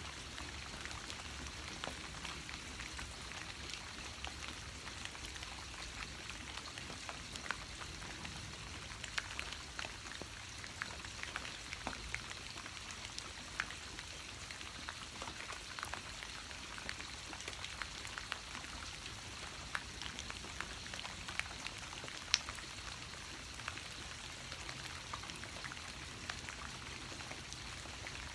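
Steady rain falling, with many separate drops ticking irregularly close by.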